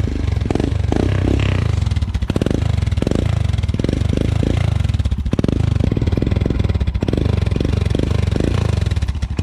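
Royal Enfield Himalayan's 411 cc single-cylinder engine running through a freshly fitted, not yet clamped Akrapovic slip-on silencer, a steady low thump with a string of short throttle blips.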